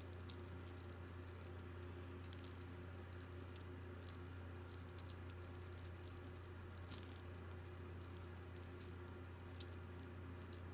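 Faint, scattered light clicks and taps of costume jewelry and beads being handled and set down, over a steady low hum.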